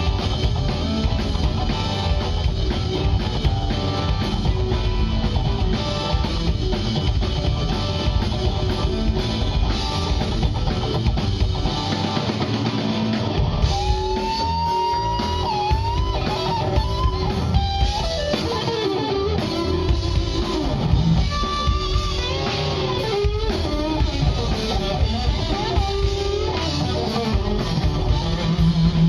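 Rock band playing live: electric guitar, bass guitar and drum kit. From about halfway in, a lead melody slides between notes above the band.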